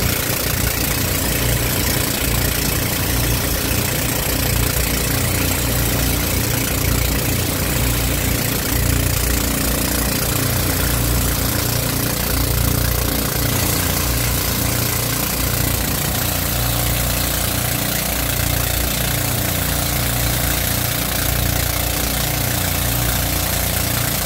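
Outrigger pumpboat engine running steadily while the boat is under way, its low throb pulsing evenly, over a constant rush of water and wind.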